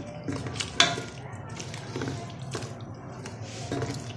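Wooden spoon stirring sliced carrots frying in oil in a metal pot, knocking and scraping against the pot a few times, the loudest knock a little under a second in.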